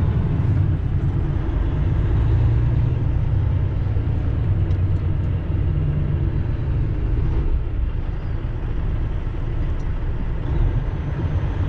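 Semi-truck's diesel engine and road noise heard from inside the cab: a steady low rumble while moving slowly in traffic.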